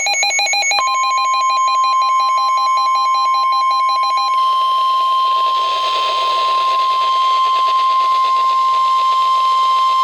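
NOAA Weather Radio warning alarm: a steady single 1050 Hz alert tone comes in about a second in and holds. Under it for the first four seconds is a rapidly warbling burst of digital SAME header data tones, which stops abruptly; radio hiss rises after that.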